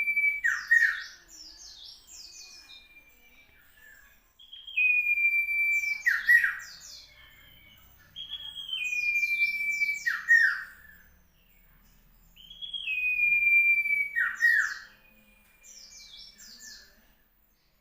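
Common iora (cipoh) singing a repeated phrase about every four seconds. Each phrase is a clear whistle that steps down in pitch and is held for about a second, then a short falling note and a quick cluster of high chirps.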